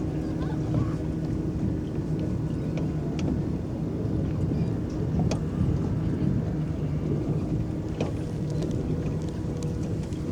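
Water churning and lapping against the hull of a small electric boat under way, a steady low rushing noise with a few faint sharp ticks about 3, 5 and 8 seconds in.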